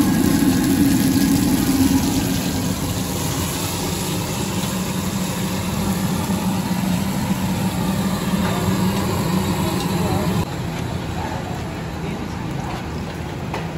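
Steady low mechanical hum, like an idling engine, under busy street background noise with indistinct voices; the sound drops abruptly about ten seconds in.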